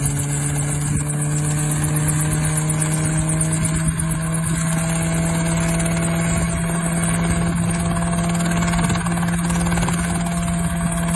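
Small single-seat open-frame helicopter running with its engine and main rotor at speed: a steady drone whose pitch creeps up slightly over the first few seconds.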